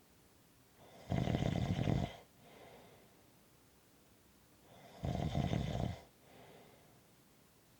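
Snoring: two snores, each about a second long and about four seconds apart, each followed by a faint, quieter breath.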